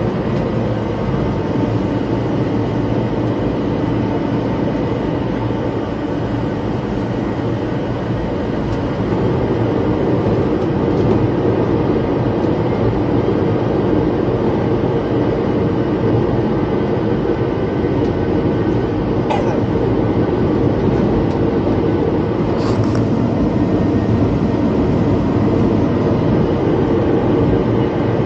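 Steady running-vehicle noise: an engine hum and rumble with a constant whine, growing slightly louder about ten seconds in.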